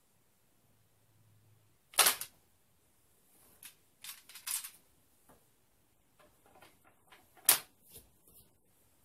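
Replica katana snapped out of its scabbard with a sharp click about two seconds in, followed by quicker swishes and rattles as the blade is swung. It is then slid back into the scabbard, seating with a second loud click near the end.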